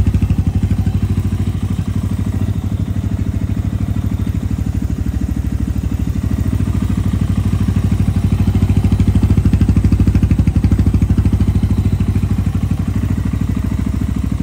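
Liquid-cooled engine of an ERZ 300 LC dirt bike idling steadily just after its first start, left running a few minutes with the radiator cap open to bleed air from the coolant.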